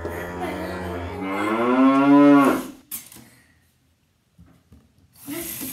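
A cow mooing: one long, loud moo that rises in pitch and cuts off about two and a half seconds in, a sound effect laid over the picture. A steady hiss starts near the end.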